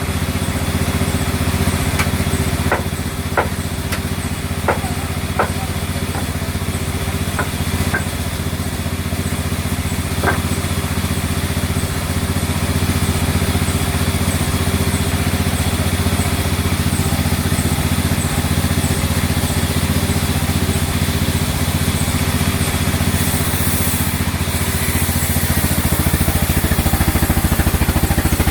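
An engine running steadily, with a few sharp knocks in the first ten seconds; the engine gets a little louder near the end.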